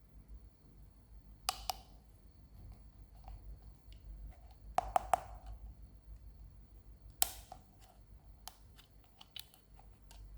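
Toy and its packaging handled close to the microphone, giving scattered sharp clicks and taps in small groups: a pair about a second and a half in, a quick run of three around five seconds, one louder click past seven seconds, then lighter ticks.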